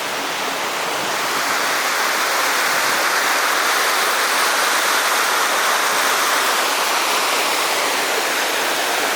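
Waterfall: a steady rush of falling water, growing a little louder over the first two seconds and then holding even.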